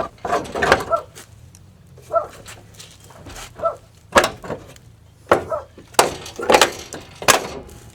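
A series of sharp knocks and clacks, about five of them in the second half, with short high squeaks in between.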